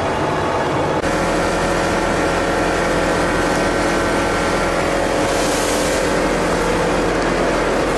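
Plastic colour sorting machine running: a loud, steady machine drone with several steady hum tones, changing abruptly about a second in. A brief hiss rises and fades about five seconds in.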